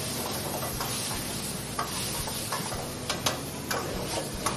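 Marinated chicken breast pieces sizzling in hot oil in a steel wok over a gas burner, with a few sharp clicks from about two seconds in.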